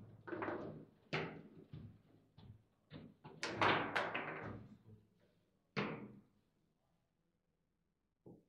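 Table football (foosball) play: a quick run of sharp, hard clacks and bangs from the ball being struck by the plastic figures and the rods knocking against the table, stopping about six seconds in. One more short knock near the end.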